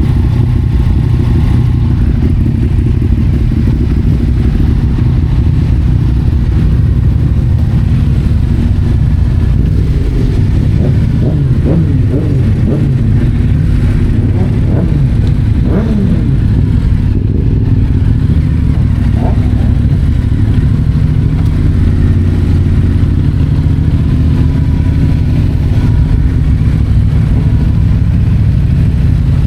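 Yamaha MT-07's parallel-twin engine breathing through an Akrapovic titanium exhaust while riding, running at a fairly steady pitch with small changes in engine speed in the middle.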